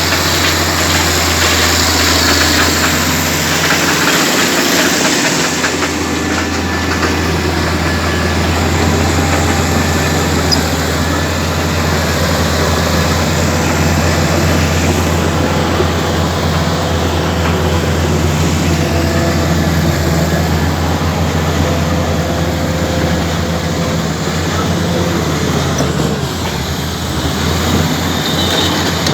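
Komatsu D85 crawler bulldozer's diesel engine running, with a steady low drone.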